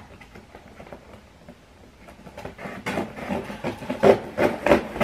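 A cardboard package being handled and opened by hand: irregular scraping and rubbing of cardboard. It is faint for the first two seconds, then grows busier.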